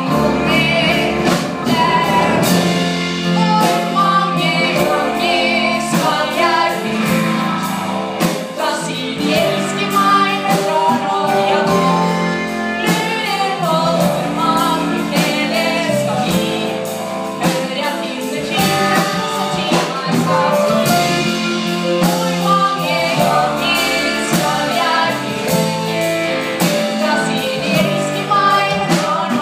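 A woman singing solo with a live band accompanying her: electric guitars and other instruments over a steady beat.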